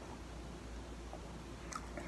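Quiet chewing of cornstarch, with faint soft clicks and one sharper crunchy click near the end, over a steady low hum.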